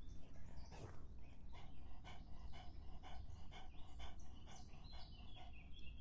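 A dog lapping water, a steady run of wet laps about four a second over a low rumble. Near the end a high wavering tone comes in.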